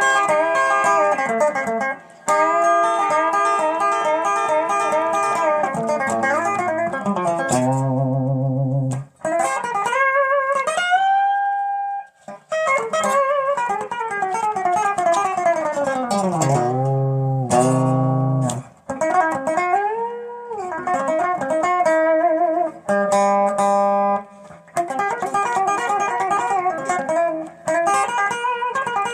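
ES-339 electric guitar strung with light Elixir 9-gauge strings, played in a string-bending demonstration. Steel-guitar-style bends push held notes up and let them fall back, with vibrato wobble, a long falling bend about halfway through, and a few brief pauses between phrases.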